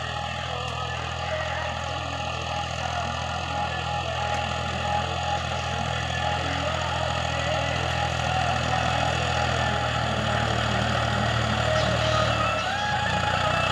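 Massey Ferguson 260 tractor's diesel engine running steadily under load while it pulls a disc harrow through dry soil. The engine note shifts near the end.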